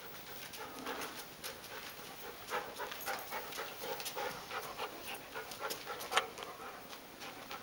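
Briard dog panting close to the microphone, with a few sharp clicks scattered through, the loudest about six seconds in.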